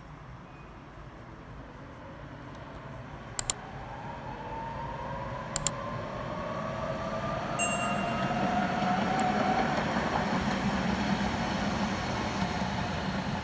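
A three-car Tatra T4D tram train approaches and passes, its running noise and low rumble growing louder. A whine from the traction motors rises in pitch through the middle as the train gathers speed. Two sharp double clacks come about three and five and a half seconds in.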